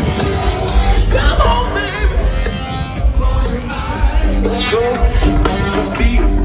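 Live rock band playing loudly through a concert PA, with a male lead vocal singing over heavy bass and drums.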